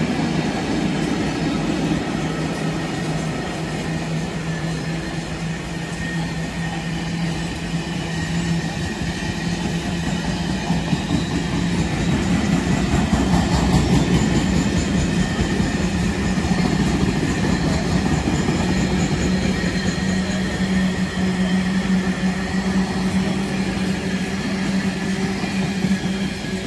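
Long freight train of car-carrier wagons running through a station at speed, its wagons rolling past steadily, loudest about halfway through.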